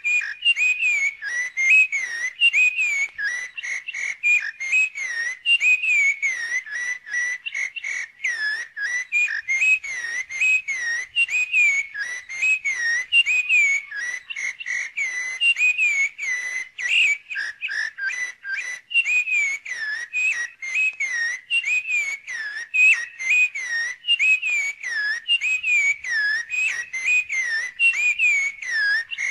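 A steady stream of quick whistled notes that slide up and down in pitch, running on without a pause.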